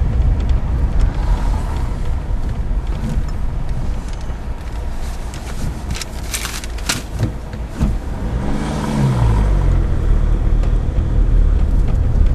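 Car engine and road noise heard from inside a slowly moving car: a steady low rumble with a few sharp clicks about six to seven seconds in. Around eight and a half seconds in the engine note falls, and then the low rumble grows louder.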